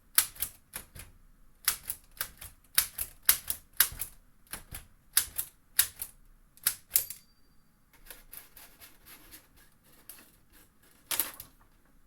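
ROKR LK703B wooden model typewriter being typed on: an irregular run of sharp key clacks, about two or three a second, that turns to fainter, quicker ticking about two-thirds through, with a last pair of loud clacks near the end.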